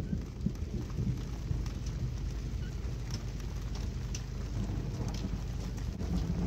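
Squall wind buffeting the microphone: a steady low rumble with no let-up, and a few faint ticks over it.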